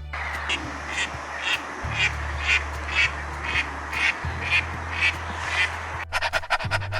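An animal giving a series of about eleven short, evenly spaced calls, roughly two a second, stopping about six seconds in.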